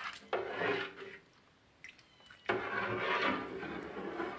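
Cut cheese curds sloshing in whey as they are stirred slowly by hand in a pot, stirred to draw whey out of the curd: a short swirl, a pause, then steady stirring from about two and a half seconds in.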